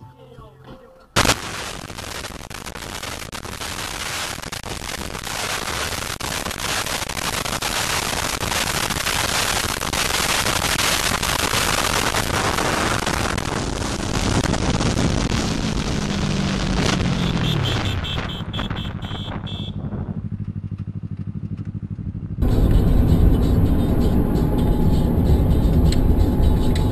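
Vehicle and road noise starting with a sudden loud bang about a second in. It swells into a dense rushing noise, with an engine note falling in pitch later on, then switches abruptly to a different, louder stretch of road noise.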